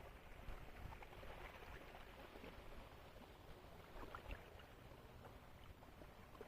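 Faint lapping of calm sea water, with small splashes and clicks scattered through it and a few slightly louder ones about four seconds in.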